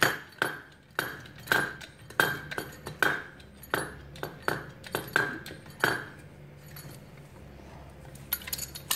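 Hydraulic pump being worked stroke by stroke to take up the slack in a hydraulic balancer puller's cylinder, each stroke giving a sharp metallic clink. The clinks come about one every two-thirds of a second for some six seconds, then stop, with a few lighter clicks near the end.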